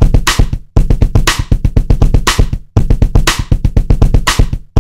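Looped drum beat: a fast run of low pulses with a sharp hit about once a second, repeating in two-second phrases that cut off abruptly and start again.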